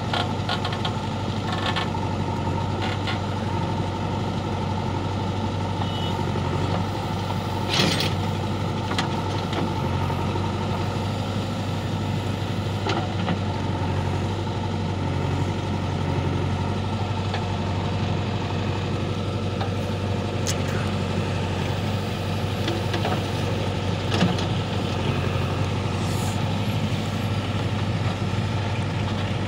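Diesel engines of a JCB 3DX backhoe loader and a farm tractor running steadily while the backhoe digs soil. A couple of sharp clanks sound, one about a quarter of the way in and another later on.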